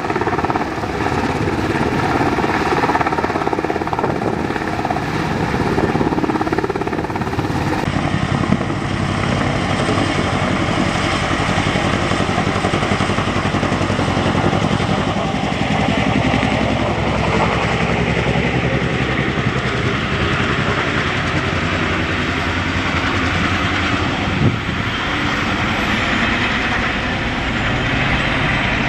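Military helicopters running loud and steady: a UH-60 Black Hawk's rotor and turbine noise as it lifts off, then, after a cut about eight seconds in, a CH-47 Chinook's twin rotors and turbines as it hovers and flies off.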